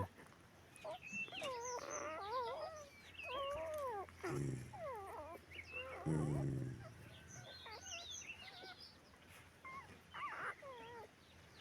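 Newborn puppies squeaking and whimpering in short, high, wavering cries while suckling, with two brief low grunts about four and six seconds in.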